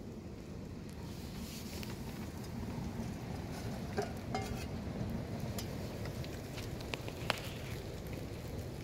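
Wood fire in a small metal stove crackling, with scattered sharp pops and clicks over a steady low rumble.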